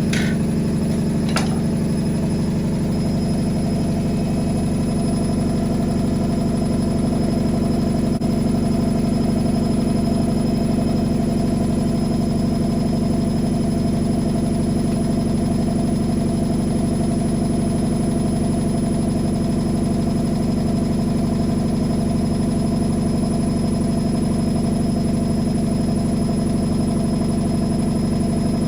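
Whirlpool AWM 864 Aquaprogramm washing machine running with a steady motor and drum hum that does not change in level. Two short clicks come in the first second and a half.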